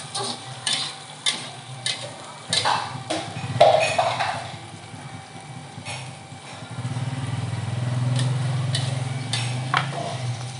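Metal spatula knocking and scraping against a frying pan as ingredients are stir-fried, with a string of sharp taps about half a second to a second apart and a louder scrape a few seconds in. In the second half a low engine hum swells and fades.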